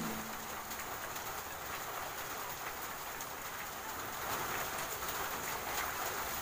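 Steady hiss of rain falling, with faint small clicks of metal carburetor parts being handled.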